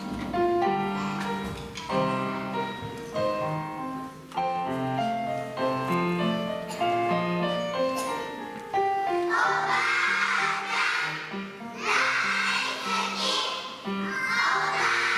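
Instrumental music playing a melody in clear, separate notes, then a group of young children singing along together, coming in about two-thirds of the way through.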